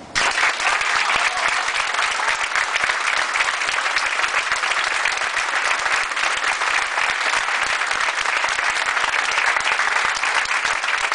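A large crowd applauding, breaking out suddenly and going on steadily.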